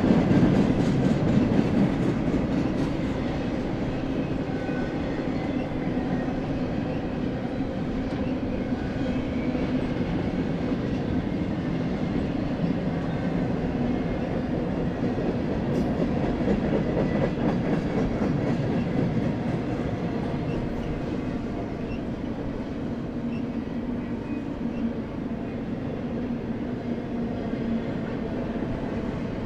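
Double-stack intermodal freight train's container well cars rolling past, a steady low rumble of wheels on rail, slightly louder in the first couple of seconds, with faint clicks.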